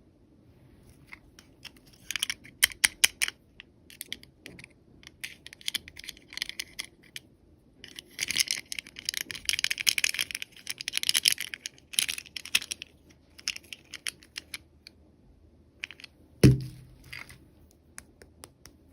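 Packaging being handled and opened by hand: a run of small plastic clicks and crinkling rustles, busiest about halfway through, with a single loud knock about three-quarters of the way in.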